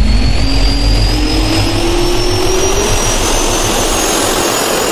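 Jet engine spool-up sound effect: a loud, steady rush of air with a turbine whine that keeps rising in pitch, and a lower tone that climbs with it over the first few seconds.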